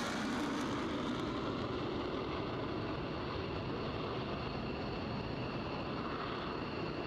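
F-22 Raptor's twin Pratt & Whitney F119 turbofans running at high power on the takeoff roll: a steady rushing jet noise with a thin high whine.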